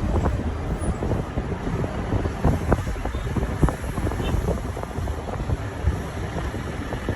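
Moving bus heard from inside: steady engine and road noise with frequent rattles and knocks, and wind buffeting the microphone.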